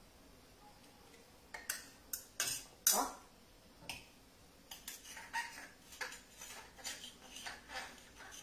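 Metal utensils clinking and scraping against a pan and a plate as spaghetti is twirled and served into a nest. There are a few sharp clinks, the loudest about three seconds in, then a string of lighter taps about every half second.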